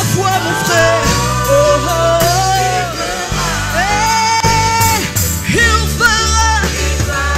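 Gospel worship team singing live with a band: a lead voice and backing singers holding long, sliding notes over electric guitar, keyboard and a steady low accompaniment.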